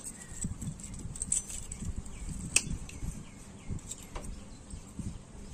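Small metal clicks, ticks and scrapes as a pointed metal tool pries at the wire leads and electrode plates of a CRT electron gun. There is one sharp click about two and a half seconds in.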